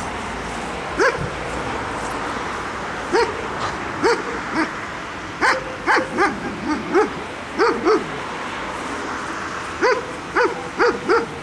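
A dog barking repeatedly: about fourteen short barks that come singly and in quick runs of two to four. Under the barks runs a steady background hiss.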